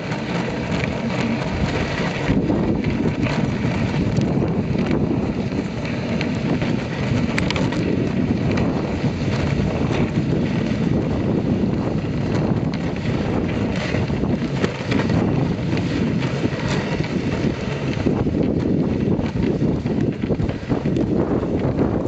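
Wooden sled sliding fast over snow behind a running dog team: a steady, rough noise, with wind buffeting the microphone.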